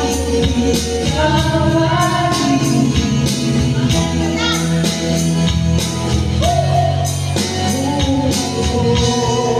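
A woman singing live through a microphone over amplified music with a steady beat and a sustained bass line.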